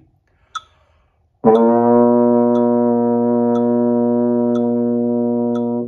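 Metronome clicking about once a second, then a euphonium comes in about a second and a half in with one low open note (no valves pressed), held steady for four clicks as a beginner's long-tone exercise, and stops near the end.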